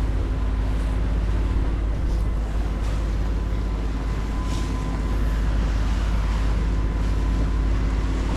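The yacht's 140 hp Volkswagen marine diesel engine running steadily at about 2000 RPM under way, a continuous low drone.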